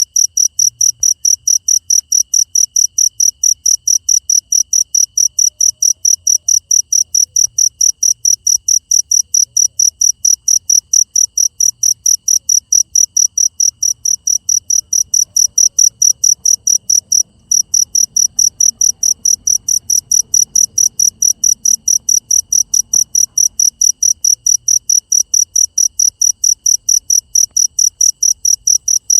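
Cricket chirping in a fast, very regular rhythm of about three high-pitched chirps a second, broken once by a short pause partway through.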